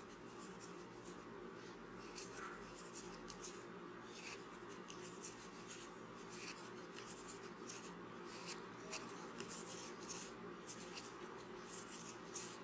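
Faint rustling and scratching of a metal crochet hook drawing yarn through stitches, with small scattered ticks over a low steady hum.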